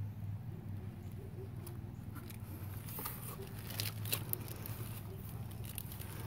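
Cardboard box flaps handled by a hand, giving a scattering of soft crackles and sharp clicks, thickest between about three and four and a half seconds in, over a steady low hum.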